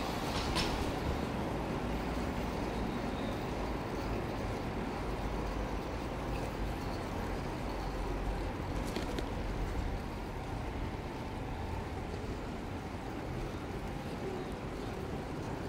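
Steady low rumble of road and wind noise while riding a bicycle, with a few short sharp clicks, one about half a second in and one about nine seconds in.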